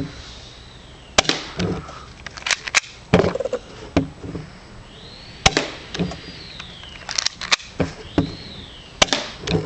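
A cheap spring-powered airsoft pistol firing one shot at a time, about ten sharp snaps spaced roughly a second apart at uneven intervals as a magazine is emptied.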